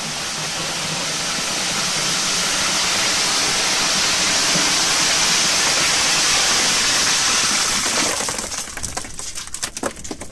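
Crushed ice pouring in a steady rush from a ribbed chute into a plastic cooler, breaking up into scattered clicks and clatters of falling pieces near the end as the flow stops.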